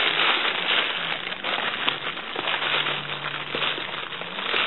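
Dense crackling and rustling right at a camcorder's built-in microphone: handling noise as the camera is moved about and hair brushes over it.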